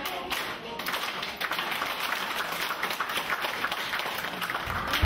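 Dance music ends about a second in, followed by many people clapping.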